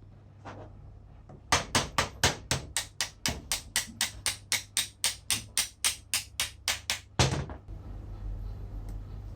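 A run of about twenty sharp, evenly spaced taps, about four a second, ending in one heavier knock.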